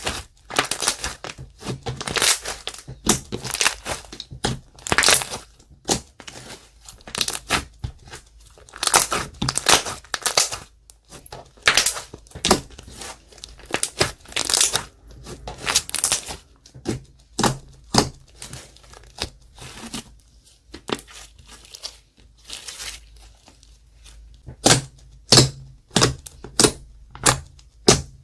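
Clear slime being worked by hand, squelching and crackling with sticky pops in irregular bursts, about one or two a second. Near the end comes a quicker run of sharper clicks.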